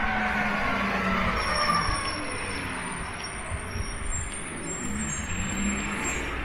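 Road traffic: a motor vehicle passing, with a whine that falls in pitch over the first two seconds over a steady engine rumble.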